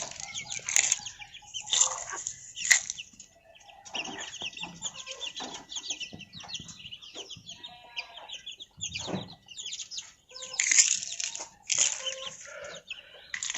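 Village chickens clucking while young chicks peep in many short, high calls, with some wing flapping and scuffling.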